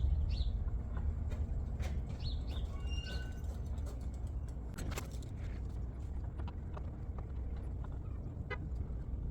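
Light scattered clicks and knocks of a greased CV joint being handled and fitted onto the axle shaft's splines, over a steady low rumble.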